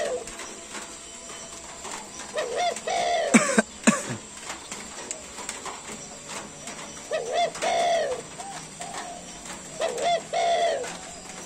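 Spotted dove cooing: a short phrase of a few low coos, repeated three times several seconds apart. About three and a half seconds in comes a brief, louder cluster of sharp, sweeping sounds.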